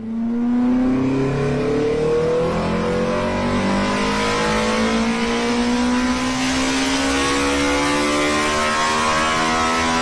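A car engine pulling under steady acceleration, its note climbing slowly and evenly in pitch, loud and continuous.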